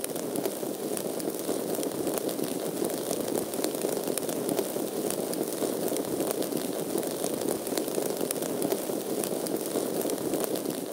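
Small fires crackling steadily, a continuous fire crackle with many small pops.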